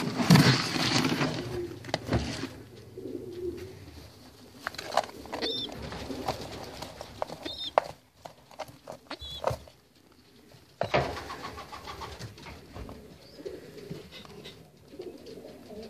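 Pigeons cooing, a low wavering coo that keeps repeating, with loud rustling and knocks near the start and again past the middle and a few faint high chirps in between.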